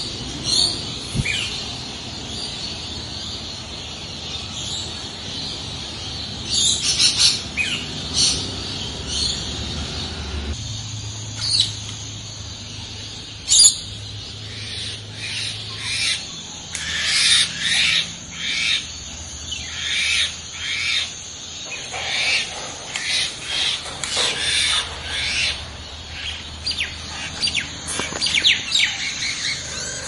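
Parrot calls: many short, shrill chirps and squawks, coming in quick runs that grow busier in the second half.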